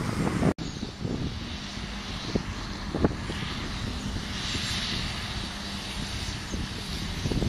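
Double-decker diesel bus approaching along the road, its engine a faint steady hum under traffic hiss and wind noise. The sound drops out for an instant about half a second in.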